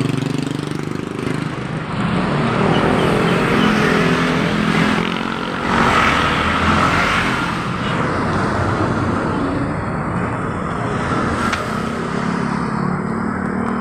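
Motor vehicles passing close by on a road, their engines running over a continuous rush of traffic noise that swells and eases as they go past.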